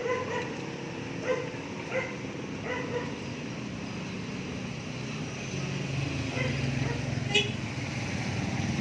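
A dog barking, about five short yaps in the first three seconds, then a low steady rumble that grows louder toward the end.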